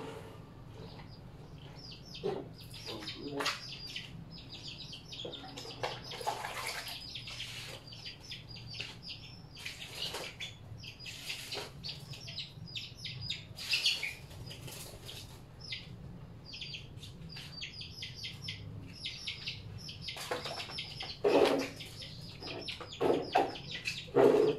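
Small birds chirping rapidly and almost without pause, over the splashing and sloshing of water in tubs as clothes are washed by hand, with several louder splashes near the end.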